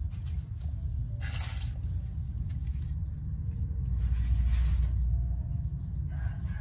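Muddy water swishing twice as a hand scoops a stone out of a shallow puddle, over a steady low rumble.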